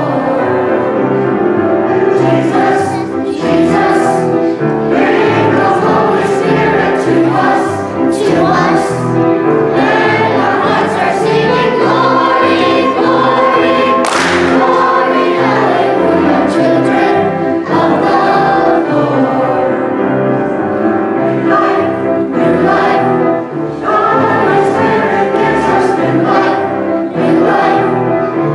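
A group of young children singing a hymn together, with instrumental accompaniment; a single sharp clap about halfway through.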